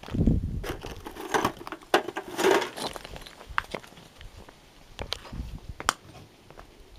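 Footsteps crunching irregularly over gravel and broken concrete debris, with scattered sharp crackles and knocks. A heavy low thump comes right at the start.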